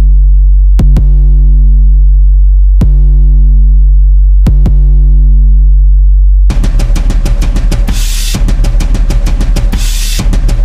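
Background music: a held deep bass note with a few sharp hits over it, then a full drum-kit beat with cymbals comes in about six and a half seconds in.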